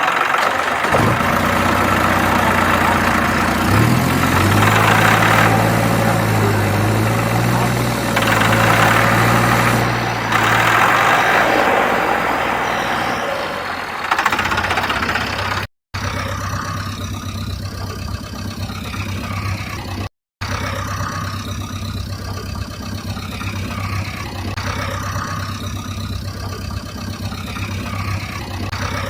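A vehicle engine running, stepping up in pitch about four seconds in and easing back down, then idling steadily. The sound cuts out briefly twice.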